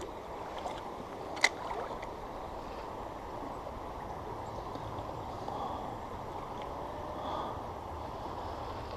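Creek water flowing steadily, with one sharp click about one and a half seconds in.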